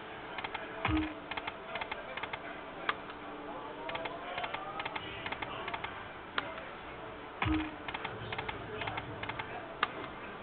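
Lightning Link slot machine playing spins: a low thud with a short electronic tone as a spin starts, about a second in and again some six seconds later, then rapid clicking as the reels run and stop, with a rising electronic tone in between.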